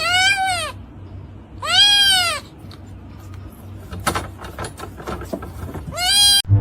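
A cat meowing three times, each meow a drawn-out call that rises and falls in pitch, with a few faint clicks between the second and third.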